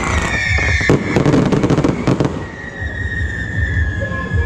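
Fireworks going off: dense crackling with a loud bang about a second in, dying down after about two seconds, under a high whistling tone that slides slowly down.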